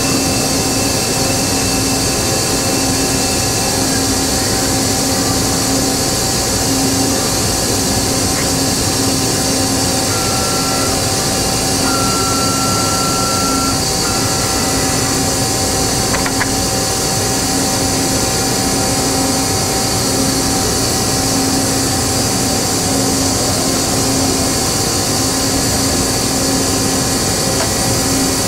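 Steady, loud hum and hiss of powered industrial machinery and ventilation, with a low pulsing drone underneath. About ten seconds in, a short high tone sounds in three pieces, and a single click follows a few seconds later.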